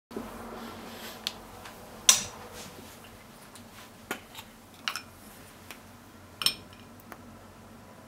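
Scattered sharp pops and clicks, about six of them, while a wooden spoon stirs a microwave-heated egg in a drinking glass; the loudest comes about two seconds in.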